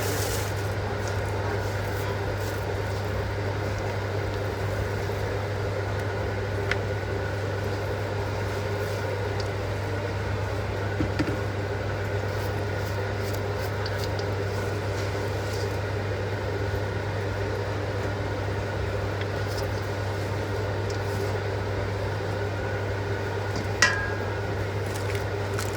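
Steady mechanical hum of a running kitchen appliance, with a few faint clicks, one of them near the end.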